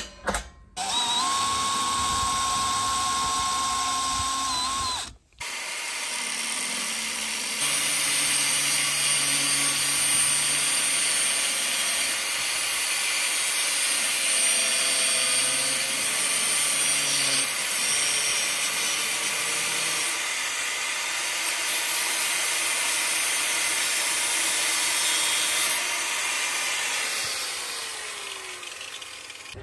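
A power drill runs steadily for about four seconds, driving screws. After a short break, an angle grinder cuts through corrugated flexible metal exhaust pipe, running steadily for over twenty seconds, then winds down near the end.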